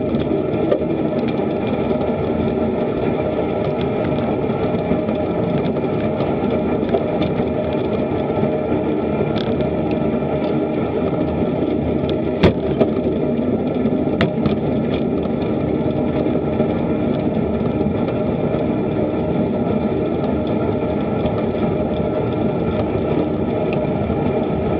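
Steady, distorted wind and road noise on a bicycle-mounted action camera while riding, with a couple of sharp clicks around the middle.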